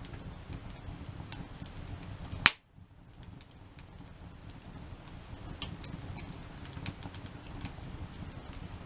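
Wood campfire crackling, with scattered small pops over a low steady background. One loud sharp pop comes about two and a half seconds in, followed by a moment of silence.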